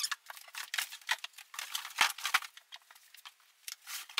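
Heavy PVC blast cabinet being lifted out of its cardboard shipping box: a quick run of scrapes, rustles and light knocks of plastic against cardboard, with one louder knock about two seconds in.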